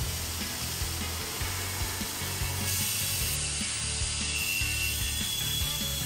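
Homemade bandsaw mill running: the blade, carried on two bicycle-wheel pulleys, saws steadily through a log, with the steady noise of its small engine underneath.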